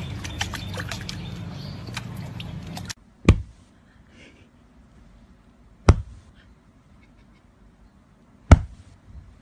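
Water splashing and trickling in a stone basin, with small clicks and drips. This stops abruptly. Three sharp, loud thumps follow, about two and a half seconds apart.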